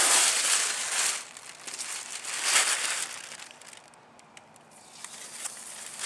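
Masking paper crinkling as it and its masking tape are pulled off an engine block and bunched up by hand. There is a loud rustle in the first second and another about two and a half seconds in, quieter in between.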